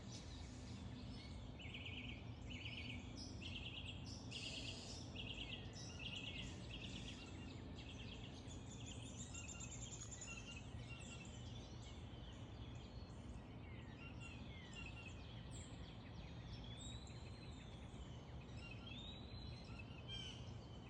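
Wild birds calling and singing over a steady low background rumble. For the first several seconds one bird repeats a short call about twice a second; later come scattered rising-and-falling chirps.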